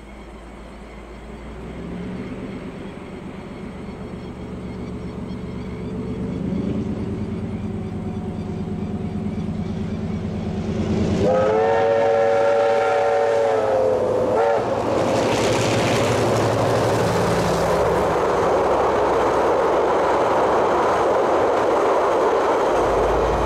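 A diesel-electric locomotive hauling a passenger train approaches, its engine rumble growing. About halfway through it sounds its multi-note horn for about three seconds, the pitch sagging slightly. The train then passes close by with a loud, steady rush of wheels and carriages.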